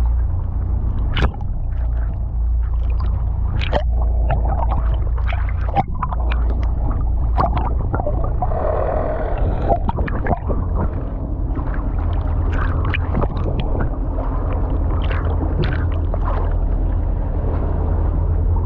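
Sea water heard through a camera held underwater: a steady low rumble with many scattered clicks and gurgles.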